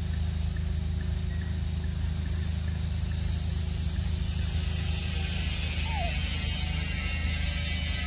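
A steady low mechanical hum, like a motor running, without any change. A high hiss grows in after about three seconds, and a short falling chirp sounds about six seconds in.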